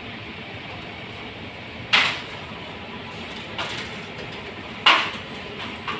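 Plastic dish-wash liquid bottles knocking against a wire supermarket shelf as they are handled. Two sharp clacks come about three seconds apart, with a fainter one between, over a steady background hiss.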